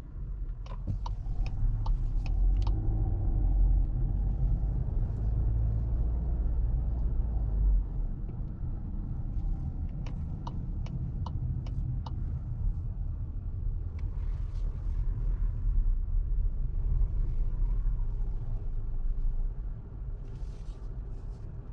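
Cabin sound of a 2024 Volkswagen Tiguan 1.5 eTSI driving slowly: a steady low engine and road rumble, heavier in the first third. Twice there is a short run of quick, even ticks from the turn-signal indicator.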